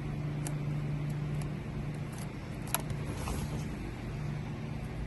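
A steady low hum throughout, with a few small clicks and taps of plastic airbag connectors and steering-wheel trim being handled; one sharper click comes just under three seconds in.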